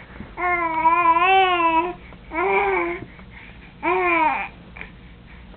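Infant vocalizing in three drawn-out vowel sounds: a long wavering one about half a second in, then two shorter ones, the last falling in pitch.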